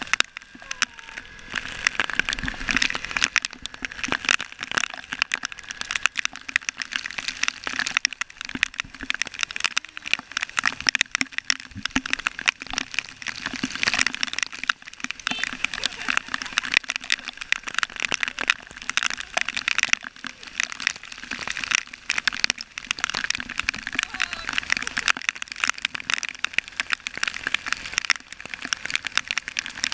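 Heavy storm rain: a dense, steady patter of countless drops striking hard surfaces.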